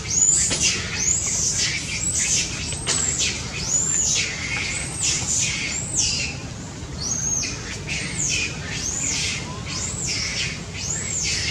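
A macaque's shrill cry, rising and falling in pitch, repeated more than a dozen times at about one cry a second.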